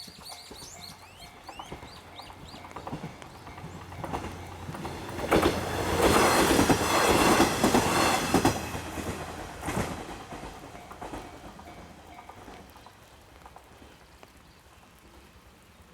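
A JR Hachikō Line diesel railcar train passes over the level crossing. It builds up, then its wheels clack rapidly over the rail joints at the loudest point about six to nine seconds in, and it fades away as it leaves.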